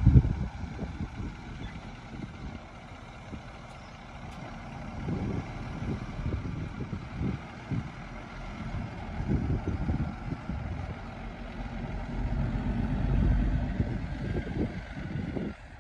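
Heavy diesel earthmoving machines, a bulldozer and dump trucks, running at work, their engines swelling under load several times.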